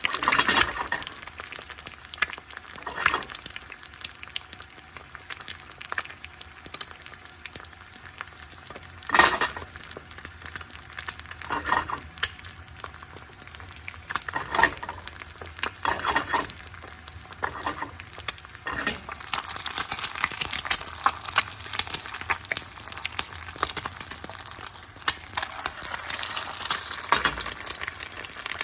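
Food frying in a pan: a steady sizzle and crackle, broken by several short clatters, the loudest about nine seconds in. The sizzle grows a little louder in the last third.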